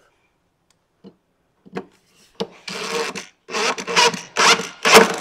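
Cordless drill/driver driving a screw through a black Accuride drawer slide into the wooden case side, its motor running in a string of short bursts that begin about two seconds in, after a few faint clicks.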